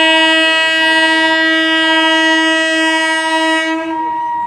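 Horn of an approaching electric local train sounding one long, steady blast of about four seconds, which stops shortly before the end. A steady high-pitched tone continues underneath and carries on briefly after the horn stops.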